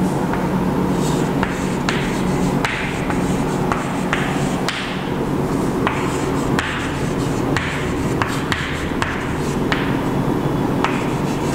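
Chalk tapping and scratching on a chalkboard as words are written: a string of short, irregular taps and strokes, about one or two a second, over a steady low hum.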